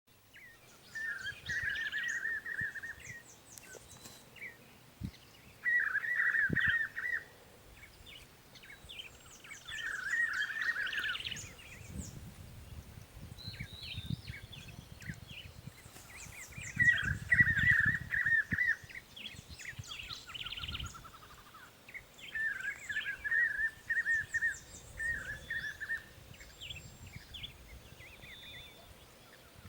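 Birds calling: a loud burst of rapid, rattling notes repeats every few seconds, about seven times, with thinner high chirps from other birds in between.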